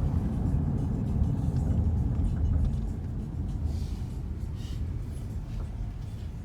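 Low, steady rumble of a car on the road, easing somewhat about three seconds in.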